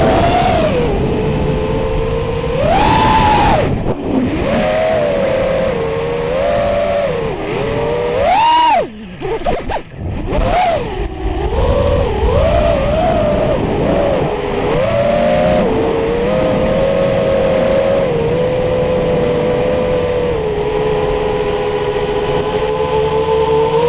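FPV quadcopter's brushless motors and propellers whining, the pitch rising and falling with the throttle. About nine seconds in, the throttle is cut and the sound briefly drops away before climbing again, and it holds a steadier pitch near the end.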